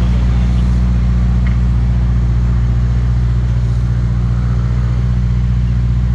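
Ferrari SF90 XX Stradale's twin-turbo V8 idling steadily with a deep, even hum.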